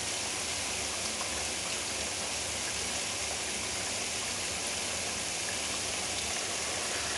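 Cold tap water running steadily and splashing onto the metal lid of a pressure cooker in a sink, cooling it so the cooker depressurizes.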